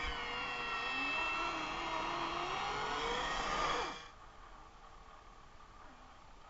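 Small electric motor and gear drive of an RC scale Land Rover Defender 90 whining, its pitch wavering up and down with the throttle and rising briefly before it cuts off about four seconds in.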